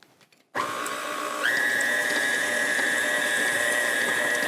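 KitchenAid stand mixer motor switched on about half a second in, beating flour into creamed butter, then stepped up to a higher speed about a second later, its steady whine jumping up in pitch.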